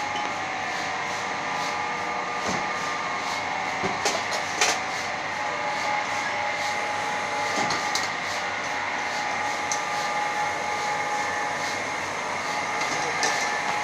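Steady hum and drone of running insert moulding machinery, with a faint regular ticking about twice a second. A few sharp clicks and clatters come in over it, as moulded tester parts and metal blades are handled.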